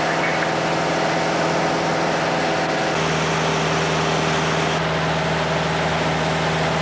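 Piper Cherokee's piston engine and propeller running in flight, a steady drone heard inside the cabin. The drone's tone shifts abruptly about three seconds in.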